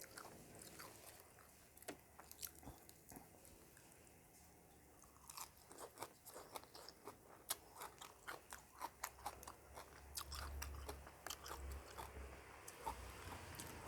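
Faint, close-up chewing of crisp raw vegetables: a few soft crunches at first, then a quick run of sharp crunches from about five seconds in.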